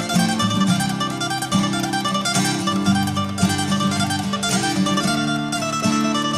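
Music with plucked strings, guitar or mandolin, playing a fast run of notes.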